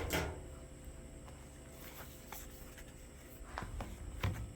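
Cardboard box and packaging being handled: a knock right at the start, light scuffing and rustling, then two more knocks near the end.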